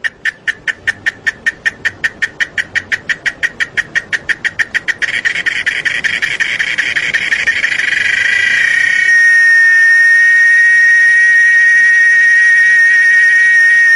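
A cicada calling loudly: a high-pitched ticking of about five pulses a second that speeds up and swells until, about nine seconds in, it merges into one continuous steady whine.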